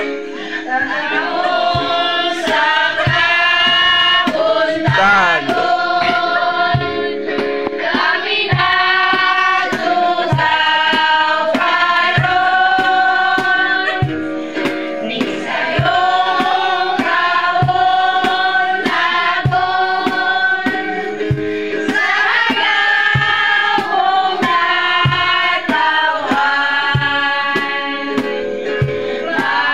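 A group of women and children singing a birthday serenade together in unison, with a steady beat keeping time under the voices.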